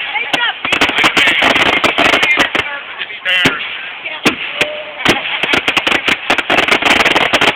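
Aerial fireworks display: a rapid series of sharp reports and crackling bursts, in two dense runs.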